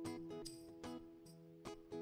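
Quiet instrumental background music of short plucked notes.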